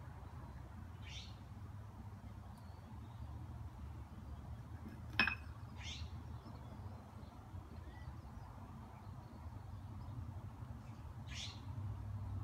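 Three short, high bird chirps spaced several seconds apart over a steady low outdoor rumble, with one sharp click a little before the middle.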